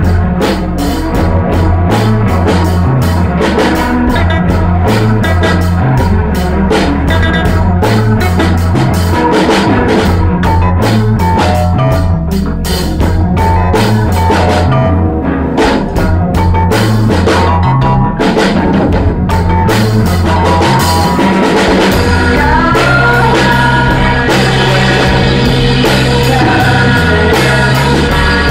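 Rock band improvising a jam, recorded live in the rehearsal room, with the drum kit prominent.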